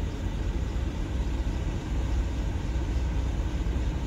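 Steady low rumble of an idling semi truck's diesel engine, heard inside the cab.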